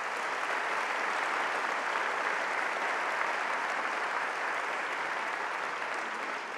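A large seated audience applauding steadily, a dense wash of many hands clapping that fades slightly near the end.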